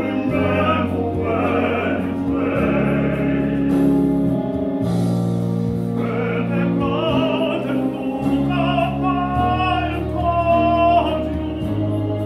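Male four-part a cappella vocal quartet singing close harmony in a classical choral style. A deep bass holds long low notes under the chords, which change every second or two, and an upper voice carries a wavering line above them in the second half.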